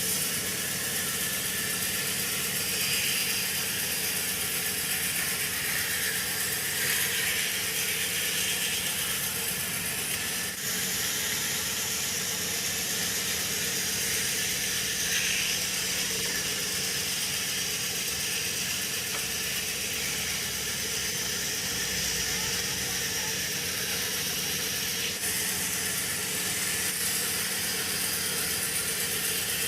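Sawmill machinery running steadily, a constant mechanical hum with a hissing, rattling noise over it.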